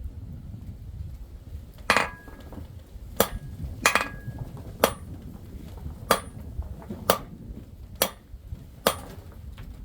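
Hand hammer striking silver being forged into a ring: eight separate blows about a second apart, some with a short metallic ring, over a steady low rumble.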